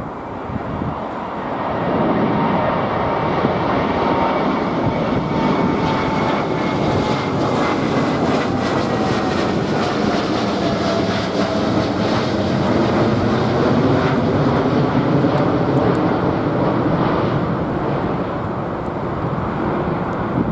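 Twin GEnx-1B jet engines of a Boeing 787-9 Dreamliner at takeoff power as the airliner departs and passes by. The engine noise swells about two seconds in and stays loud, with a whine that falls in pitch as the plane goes past.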